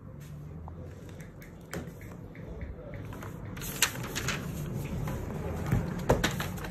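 Pages of a bound paper logbook being turned by hand: a run of rustles and soft slaps of paper, loudest about four seconds in and again near the end.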